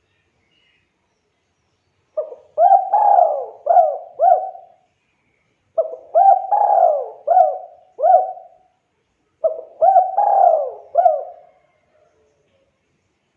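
Spotted dove (tekukur) cooing: the same song phrase three times, each a quick opening note, a longer drawn coo and a few short falling coos.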